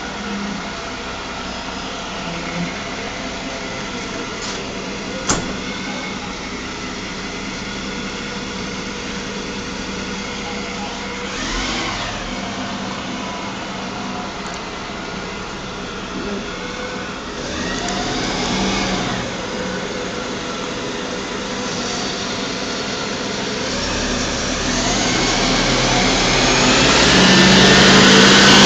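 Diesel engine of a refuse collection lorry running steadily, growing louder over the last few seconds as the lorry draws up alongside. A single sharp click about five seconds in.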